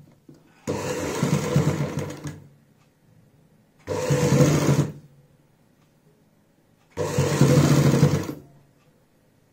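A sewing machine stitching lace onto a kurti neckline, in three short runs with brief stops between them.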